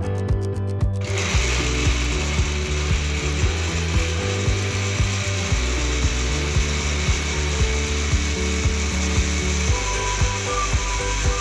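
Westpoint electric countertop blender motor starting about a second in and running steadily, liquefying peach flesh and water. Background music with a steady beat plays underneath.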